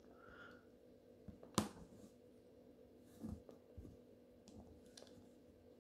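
Small plastic clicks of LEGO minifigure parts being pressed together by hand: a few scattered snaps, the loudest a sharp one about one and a half seconds in. A faint steady hum runs underneath.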